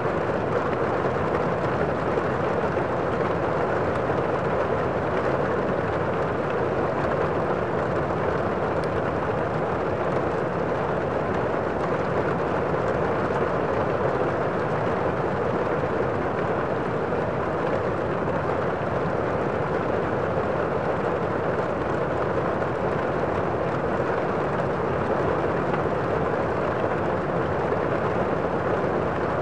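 A steady, even rushing noise with no breaks or separate events.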